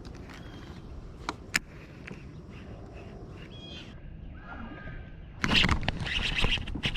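Open-water ambience with two sharp clicks and a few faint bird chirps, then a sudden loud splash about five and a half seconds in as a fish strikes a topwater frog lure on the surface.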